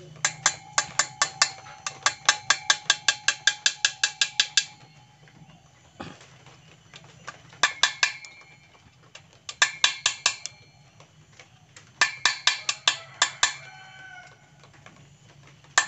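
Quick light metallic taps of a small pointed striker on a sheared 6 mm bolt in an aluminium motorcycle crankcase, in runs of about five or six taps a second with short pauses between runs. The taps are knocking the broken bolt round to unscrew it after it was soaked with penetrating oil.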